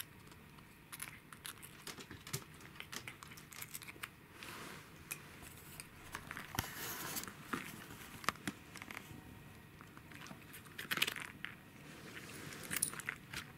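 A cat crunching and biting a dried bonito chip treat: irregular sharp crunches and crackles, with the foil treat packet crinkling at times.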